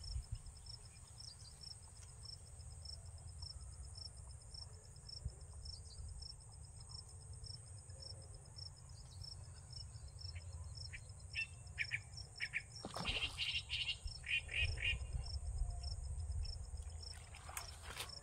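Insects chirring steadily in a regular high pulse over a low wind rumble on the microphone, with a few short bird chirps a little past two-thirds through. Near the end comes a burst of rustling knocks as a caught fish is swung onto the grassy bank.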